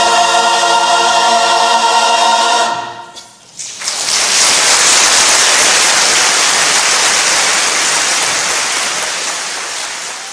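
Mixed choir holding a final chord, cut off about two and a half seconds in. After a short pause, audience applause breaks out and fades out near the end.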